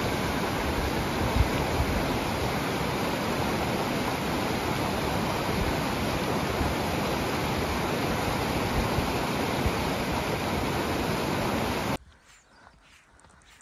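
Zigzag River, a fast mountain creek, rushing steadily over rocks while running high with snowmelt. The water sound cuts off abruptly about twelve seconds in.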